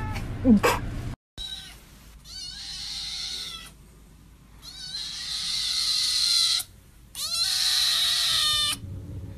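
Black kitten meowing: three long, loud, drawn-out cries, each one to two seconds long, with short pauses between.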